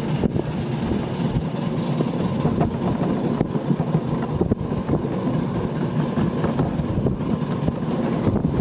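7¼-inch gauge miniature steam train running along its track, heard from a car behind the locomotive: a steady low rumble of wheels on rail with scattered short clicks.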